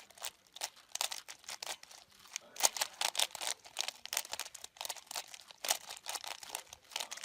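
Plastic 3x3 puzzle cube being turned quickly by hand while it is solved: a fast, irregular run of clicks and rattles as its layers snap round.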